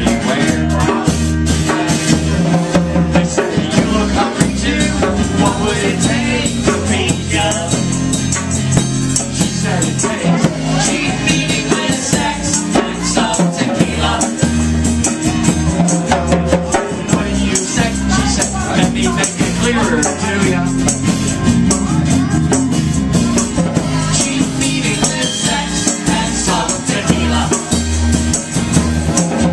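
Live band playing a song: strummed acoustic guitar, bass and voices singing, with a shaker rattling along to the beat.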